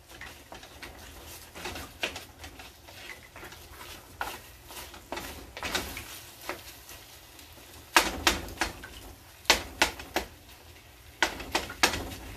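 Wooden spoon stirring a thick sticky rice mixture in a stainless steel pot: irregular clicks and knocks of the spoon against the pot's sides and bottom. The knocks come louder and more often in the last few seconds.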